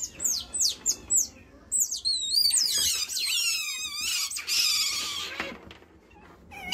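Asian small-clawed otters squeaking while begging for a treat: a quick run of high, falling chirps, then longer wavering squeals that fade near the end.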